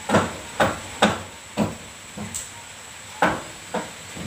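A series of sharp knocks, about two a second at first and then more irregular, with a faint steady high whine behind them.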